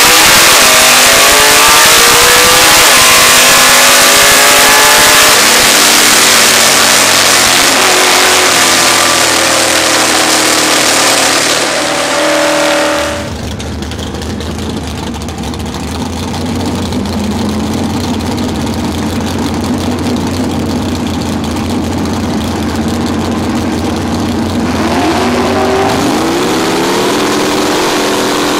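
Plymouth Duster drag car's engine at full throttle on a drag-strip pass, heard very loud from inside the car, its pitch climbing and breaking off several times through the gear changes. About halfway it gives way to the same car heard from beside the track, quieter and steadier as it runs away down the strip, with a rising engine note near the end.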